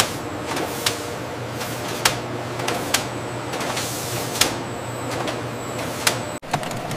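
Factory machinery running with a steady mechanical hum, broken by sharp clacks about once a second. The sound cuts out briefly near the end.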